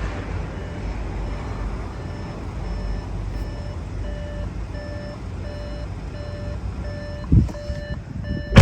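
A steady run of short, evenly repeated electronic beeps over a low rumble, with a thump near the end.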